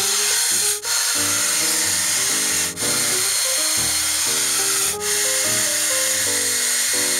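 Hot Tools handheld hair dryer running steadily, a constant rushing hiss with a thin high whine, cutting out briefly three times. Background music with a melody of short notes plays underneath.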